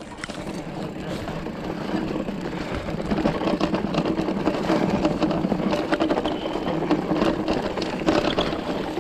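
Mountain bike rolling down a rough, narrow dirt trail: a steady mechanical buzz with many small knocks and rattles from the bike over the ground.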